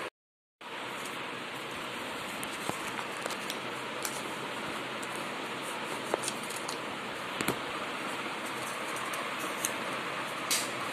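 Steady hiss of background noise, with a few faint clicks and rustles of paper being folded by hand. The sound cuts out for about half a second right at the start.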